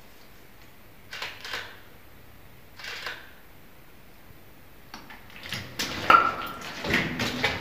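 Quiet room tone with a few short soft scrapes, then shuffling footsteps and handling noise as people move off, with a brief squeak about six seconds in.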